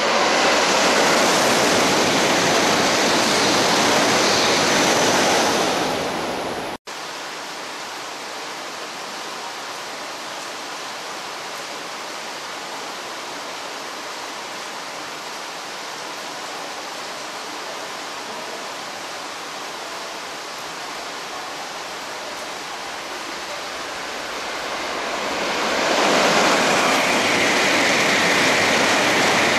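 E2 series Shinkansen trains passing at speed in heavy rain: a loud, steady rush of wind and water spray that breaks off about seven seconds in. A quieter steady hiss of rain follows, then swells back to a loud rush from about 26 seconds in as another E2 passes.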